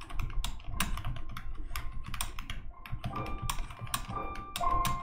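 Typing on a computer keyboard: an irregular run of key clicks.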